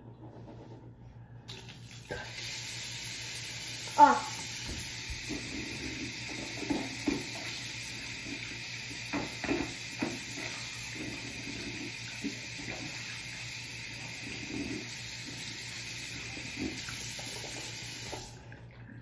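Bathroom sink tap turned on about a second and a half in, running steadily into the basin, and shut off near the end. Someone rinses at the sink under it, with scattered knocks and splashes; the loudest is a sharp knock about four seconds in.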